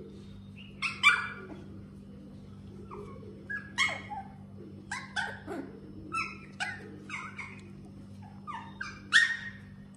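Husky puppies yipping and giving short, high-pitched little barks as they play-wrestle, in scattered calls that fall in pitch, the loudest about a second in and near the end.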